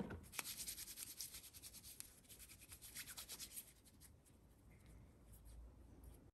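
Hands rubbing together with alcohol hand rub: a soft, rapid rubbing that grows fainter over the seconds. A sharp click from the hand-rub pump dispenser comes right at the start.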